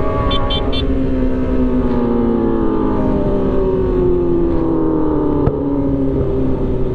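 Sport motorcycle's engine heard from on board, its note falling slowly and steadily as the bike rolls off and slows, over a low rushing rumble. Three short high beeps sound just after the start.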